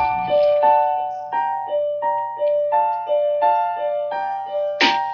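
Instrumental hip-hop beat intro: a keyboard piano repeats a short figure of high notes, about three a second, over a steady low bass tone. Near the end a sharp, louder hit cuts in as the drums start.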